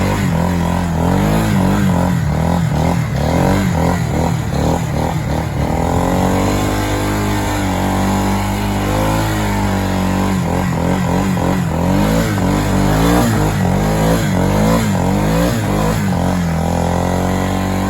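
ATV (four-wheeler) engine revving up and down in low gear, working under load with the throttle opening and easing again and again.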